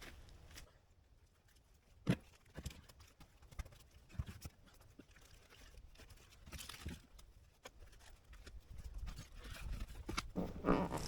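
Scattered footsteps and irregular hollow knocks as a sea kayak is moved by hand, with a few sharper knocks and a noisier scuffle near the end.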